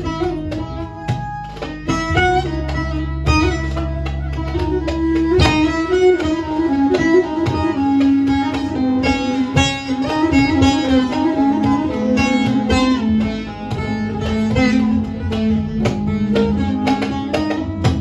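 Live Turkish folk music led by a bağlama (saz), its strings plucked in quick running notes. A low steady bass sits under it for the first five seconds or so, after which a wavering melody line carries on over the plucking.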